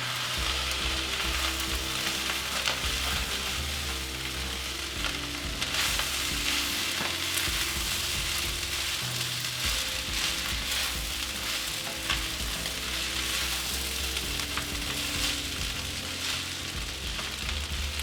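Pork fried rice sizzling in a hot oiled pan as it is stirred, with a steady hiss and scattered short clicks and scrapes.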